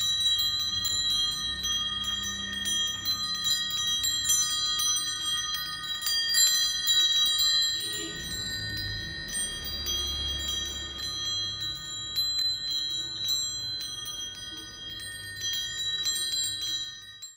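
Brass-tube wind chime ringing, its tubes struck again and again so that several clear tones ring on and overlap.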